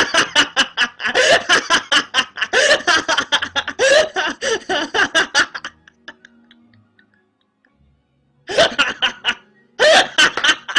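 A woman laughing hard in quick, rapid bursts for about five and a half seconds. After a short pause there are two more brief bursts of laughter near the end.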